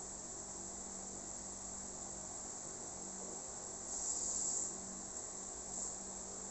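Instant Shin Ramyun noodles slurped from a bowl: one louder slurp about four seconds in and a shorter one near the end, over a steady high-pitched hiss.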